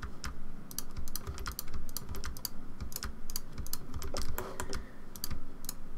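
Computer keyboard and mouse clicking in quick, irregular succession: edges being selected with mouse clicks and Shift+R pressed again and again to repeat the last step.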